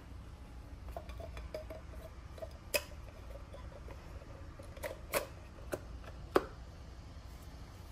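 Handling clicks and taps from a plastic oil filter housing cap as a new paper cartridge filter element is fitted onto it: scattered light ticks with a few sharper clicks, the loudest about six seconds in.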